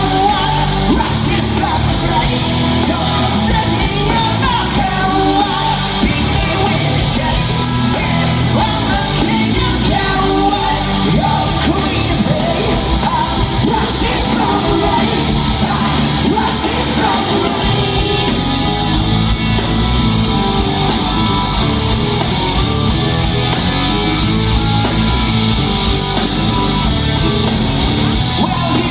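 Loud rock music over a steady beat, with a sung and yelled lead vocal.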